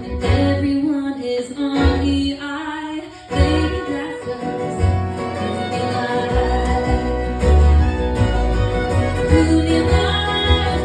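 A woman singing with live band accompaniment, guitar among the instruments.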